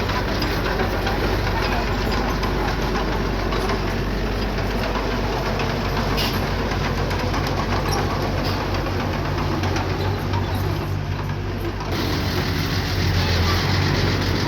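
Diesel engine of small earthmoving machinery (mini bulldozer or dump truck) running steadily, with a deep hum that gets a little louder near the end.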